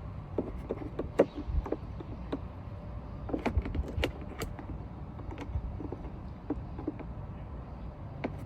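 Irregular plastic clicks and taps as a part is pushed off its retaining tabs by hand on an SUV's rear AC evaporator box, over a steady low hum.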